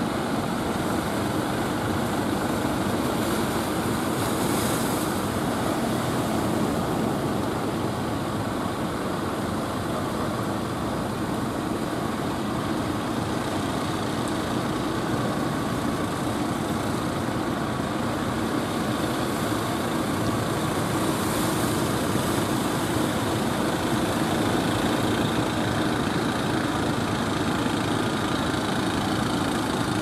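Wooden fishing boats' engines running steadily under the rush of waves breaking against their hulls.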